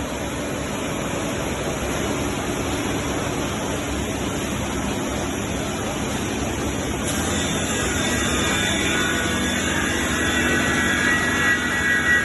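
SCM Accord 30 FX-M CNC machining centre running with a steady rushing noise. About seven seconds in, a high whine with several steady tones joins in and grows louder.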